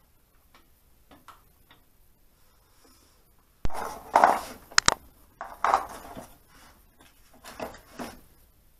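Small metal engine parts being handled and clinking against each other and the crankcase: a sharp click a little under halfway in, then three spells of clattering and scraping with two bright metallic pings.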